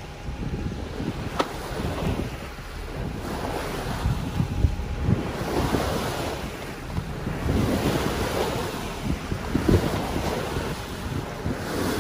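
Sailboat's bow pushing through a choppy sea: water rushing and splashing along the hull in surges that swell and ease every couple of seconds, with wind buffeting the microphone.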